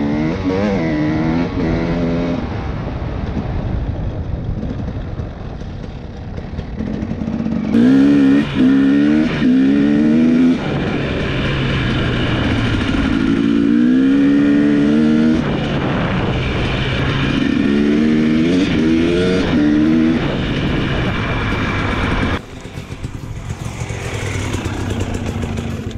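Enduro dirt bike engines revving hard and working up through the gears. Each run climbs in pitch and drops at the shifts, several times over.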